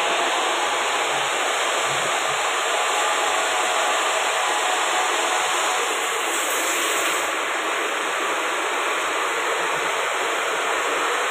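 Main fire water pump running, with a steady rushing noise of water flowing through the pump and its piping.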